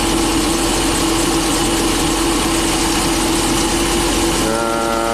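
Ford E450's 6.8-litre V10 idling rough at about 1050 rpm, heard from inside the cab: cylinders 8 and 9 are misfiring while the power balance test has cylinder 5 cut out, so the engine shakes hard. The mechanic suspects restricted exhaust manifold ports are flooding the dead cylinders with fuel. A short steady beep-like tone sounds near the end.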